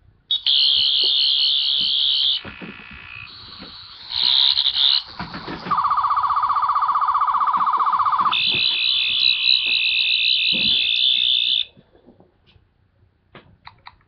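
Doctor Who 12th Doctor sonic screwdriver universal remote in FX mode, playing one electronic sound effect after another through its small speaker as it is gestured with: high warbling tones, a pulsing mid-pitched buzz about halfway, then a long high warble that cuts off about three-quarters of the way through, leaving a few faint clicks.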